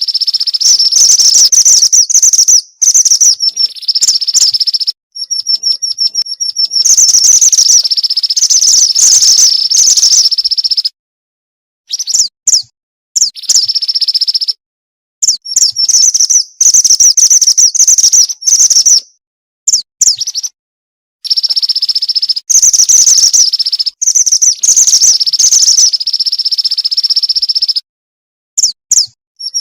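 Female pied bushchat (mantenan) calling for a male: loud, rapid high-pitched chattering calls and trills in bursts of one to four seconds, separated by short silences.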